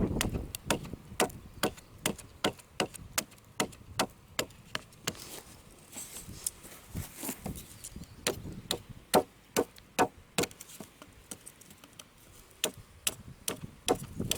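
An irregular run of sharp taps and clicks, about two or three a second, some louder than others.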